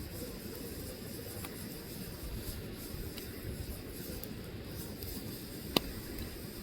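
Burning logs crackling over a steady low rumble of flames, with a few faint pops and one sharp, loud pop near the end.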